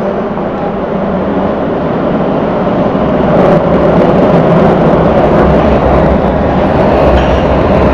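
MX3000 metro train approaching down the tunnel and running into the station, a steady rumble of wheels on rails that grows louder as it nears.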